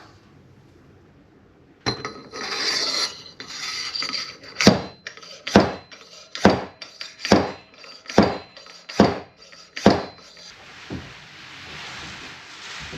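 Fork seal driver tool sliding on the fork tube, then striking seven times, sharp metallic knocks just under a second apart: driving the oil seal further down into the Honda Transalp 700 fork leg.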